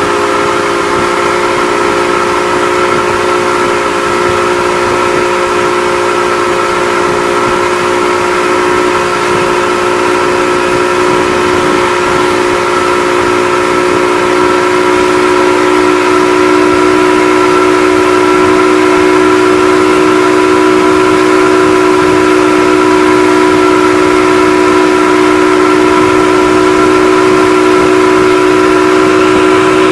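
Motorboat engine running steadily at speed under the load of a towed tube, with the rush of wind and churning wake. It gets a little louder about halfway through.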